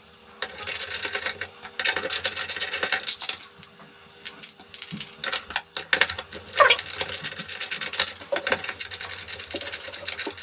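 Hand screwdriver turning the screws that hold a mitre saw's side extension: rapid, even metallic clicking, with a short pause about three and a half seconds in.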